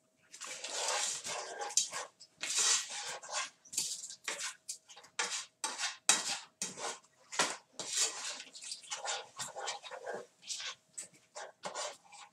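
A utensil scraping and stirring in a frying pan as eggs are mixed in, in quick, irregular scratchy strokes two or three times a second.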